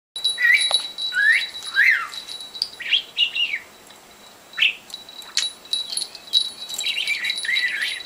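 Young budgerigar chirping: a string of short calls that glide up and down in pitch, coming in spells with a lull around the middle and picking up again near the end. A faint steady high tone runs underneath, and there is one sharp tick about five seconds in.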